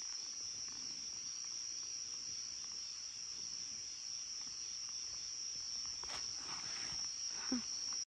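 Steady, high-pitched drone of night insects in a tropical forest, holding one unbroken pitch. Faint rustling comes in near the end.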